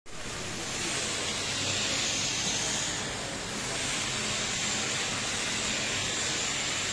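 Automatic pallet wrapping machine running: a steady machine noise with a hiss and a faint high whine.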